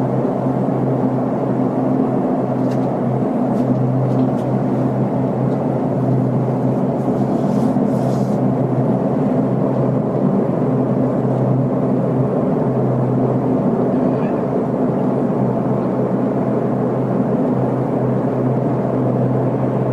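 Steady low droning rumble from the sky, like a jet plane passing overhead that never passes or fades, holding one level throughout; its source is unexplained.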